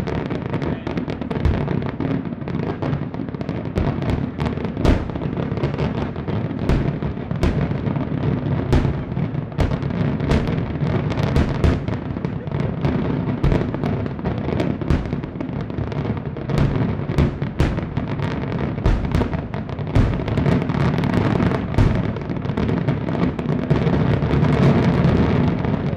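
Aerial fireworks display: a dense, continuous barrage of shell bursts, several bangs a second over a steady rumble, loudest near the end.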